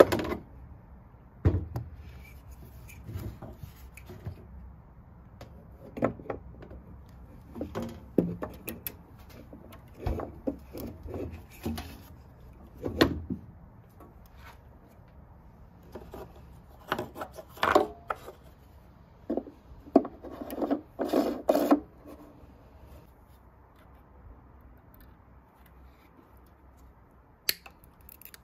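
Plastic welding-wire spool being handled on the spindle of a MIG welder's wire-feed compartment. Irregular knocks, clicks and short rubbing scrapes of plastic on plastic and metal come as the spool is slid on and turned, busiest in the middle, quieter near the end.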